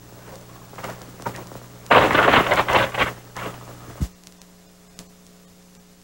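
Mains hum on an old VHS television recording, with a short rough noisy burst about two seconds in. About four seconds in a click cuts the hum off, leaving a faint background hiss, the sound of a cut in the recording.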